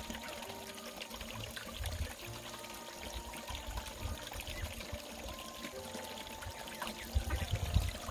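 Steady trickle of running water, with faint low rumbles near the end.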